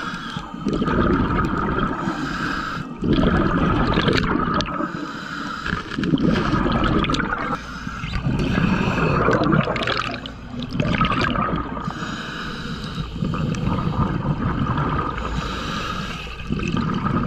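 Scuba diver breathing through a regulator underwater: hissing breaths alternating with bubbling, gurgling exhalations, swelling and fading every couple of seconds.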